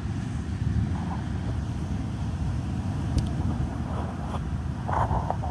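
Strong storm wind buffeting the microphone over the steady rush and rumble of heavy surf during a coastal flood tide, with a few short higher-pitched noises near the end.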